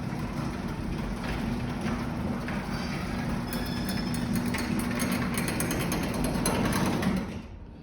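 An old All-O-Matic garage door opener running as it raises the door: a steady motor hum with a busy mechanical rattle from the drive and door. It cuts off shortly before the end as the opener stops at its limit.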